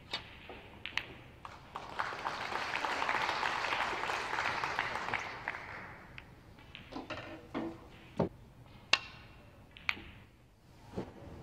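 Snooker balls clicking as a shot is played, then audience applause for about four seconds, then more scattered sharp clicks of balls and cue.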